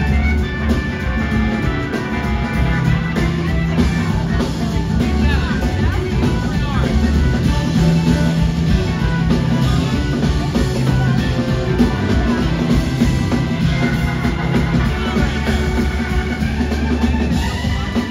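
Live rock band playing loud and steady, with a horn section, keyboards, electric guitars and drum kit.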